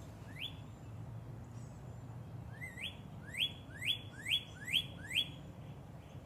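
A songbird whistling: one quick upslurred note, then after a pause a run of about six rising whistles, a little under half a second apart.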